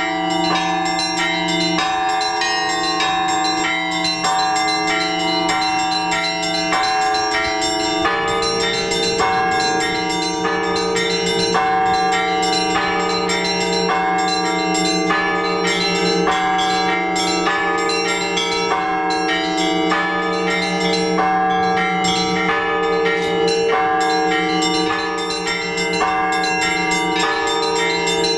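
Orthodox church bells rung together in a continuous peal (trezvon): small bells struck in quick rhythmic strokes over the sustained ringing of larger bells, with the deeper tones changing about eight seconds in.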